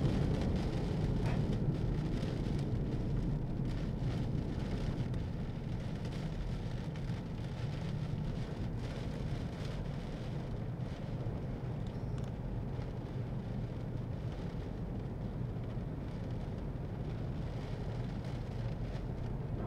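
Steady noise inside a car's cabin while driving through heavy rain on a wet, partly flooded road: engine and tyres on water, with rain on the car.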